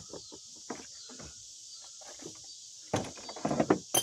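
Hands handling a rubber radiator hose and its metal hose clamp: scattered light knocks and rustles, with a louder clatter of handling about three seconds in. Crickets chirr steadily underneath.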